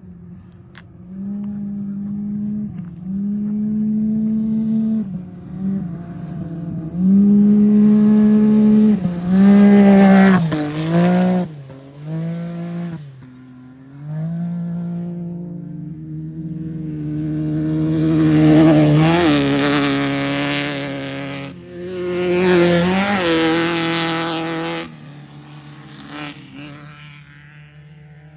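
Off-road racing vehicles at full throttle, engines revving up and down through the gears as they pass. The loudest passes, with a rush of tyre and gravel noise, come about seven to eleven seconds in and again from about eighteen to twenty-five seconds in; a lower steady engine tone remains near the end.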